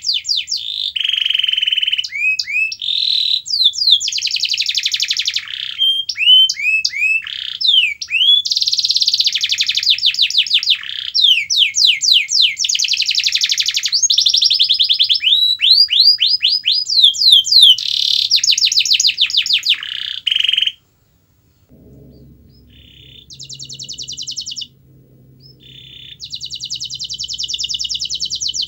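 Domestic canary singing a long, loud song of rapid rolling trills and fast repeated sweeping notes. The song breaks off suddenly about 21 seconds in, then resumes a couple of seconds later with buzzy trills over a faint low hum.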